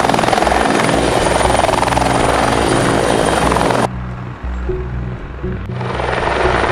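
Helicopter running close by, a loud, steady rotor and engine noise; it cuts off abruptly about four seconds in to a quieter stretch and comes back loud near the end.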